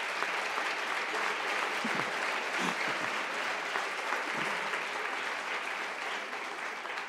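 Audience applauding: a steady round of clapping from a large crowd, easing off near the end.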